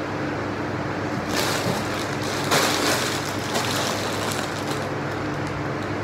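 Steady hum of a running electric fan, with a crackly rustle of plastic produce bags being handled starting about a second in and loudest around the middle.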